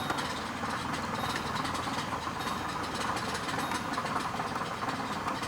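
Chevrolet Impala engine idling with a steady rattle from underneath, the sign of a failing water pump.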